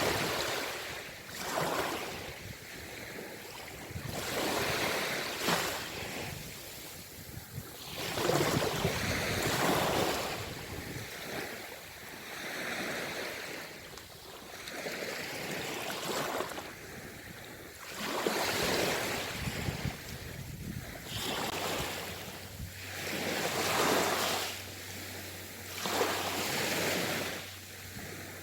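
Sea waves washing in and breaking on the shore, the surf swelling and falling back about every three seconds.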